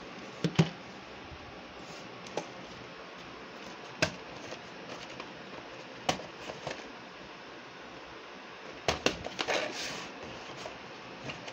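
Scattered plastic clicks and knocks of VHS tapes and their cases being handled, a second or two apart with a small cluster near the end, over a steady background hiss.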